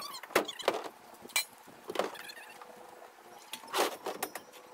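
Irregular knocks, clanks and rattles with a few short squeaks from dirt bikes and gear being handled in the bed of a pickup truck.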